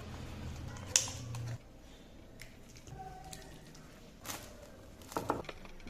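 Kitchen handling sounds while cooking: a sharp click about a second in and a few more knocks and clicks near the end, over a low hum that stops after about a second and a half.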